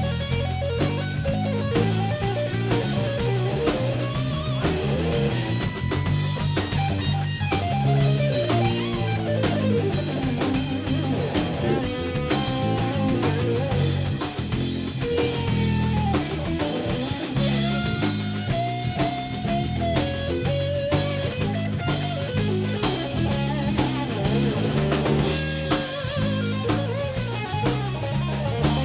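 Live trio of electric guitar, bass and drum kit playing, with the electric guitar carrying a melodic line over the bass and drums.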